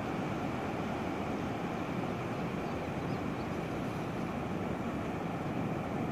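Ocean surf, a steady low rushing noise.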